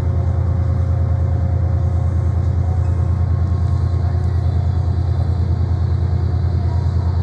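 Steady low drone with a fast, even throb, typical of a diesel train engine idling at a platform, with faint steady tones above it.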